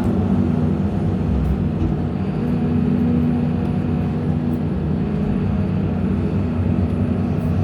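Excavator's diesel engine running steadily under work, heard from inside the cab, with a low hum that strengthens slightly about two seconds in.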